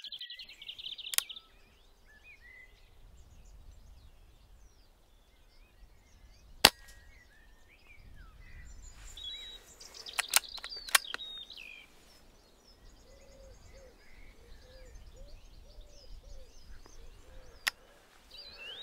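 A single sharp shot from a moderated Brocock Compatto pre-charged pneumatic air rifle, about a third of the way in. A few seconds later comes a brief cluster of clicks. Birds chirp throughout.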